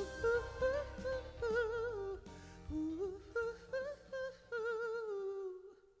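Male vocalist singing the closing phrases of a live ballad performance in short phrases with a wavering vibrato, over accompaniment that drops away after about two seconds. The voice trails off and fades out near the end as the song finishes.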